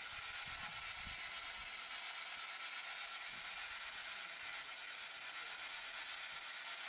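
Steady, even hiss of a quiet room's background noise, with a few faint low bumps in the first two seconds.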